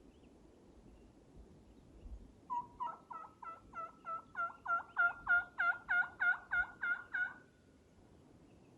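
Turkey yelping: a run of about sixteen evenly spaced two-note yelps, about three a second, growing louder as it goes and then stopping abruptly.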